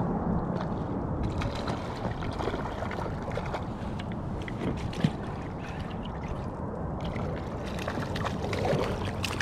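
River water sloshing and gurgling around an inflatable raft, with scattered small splashes and clicks, one sharper tick about five seconds in.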